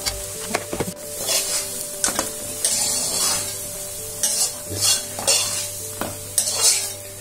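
A spoon stirring and scraping a frying mix of onion, ginger, garlic and green chili with ground spices in hot oil in a pan, with a light sizzle. About ten irregular scraping strokes.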